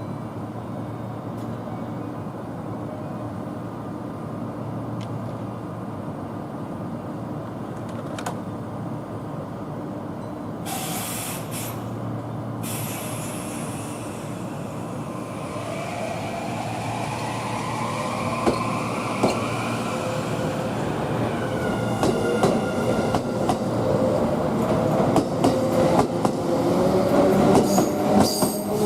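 Kintetsu limited express electric train starting off: a short hiss about eleven seconds in, then the traction motors whine rising in pitch and getting louder as it gathers speed, with the wheels clicking over the rail joints.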